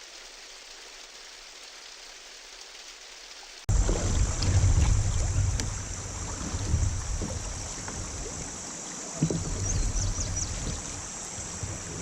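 A steady soft hiss, then a sudden cut about four seconds in to louder river sound: water rushing around a kayak, with wind rumbling on the microphone.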